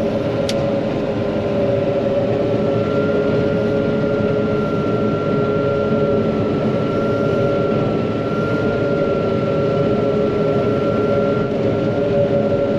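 John Deere 9500 combine running steadily while harvesting soybeans, heard from the cab: a loud, even machine drone with a constant whine over it. A single brief click sounds just after the start.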